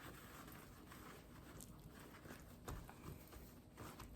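Faint, soft patting and rustling of paper towels drying a raw whole turkey, a few light taps spread through the quiet.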